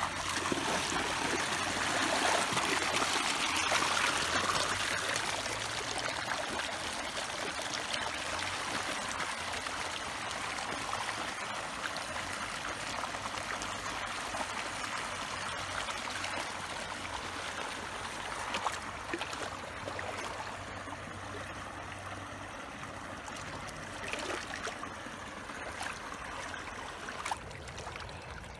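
Water flowing and trickling steadily, a little louder in the first few seconds.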